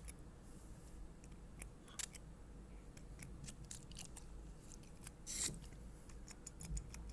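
Faint scattered clicks and one short spritz about five and a half seconds in: a medicated skin spray being applied to a cat's skin lesions.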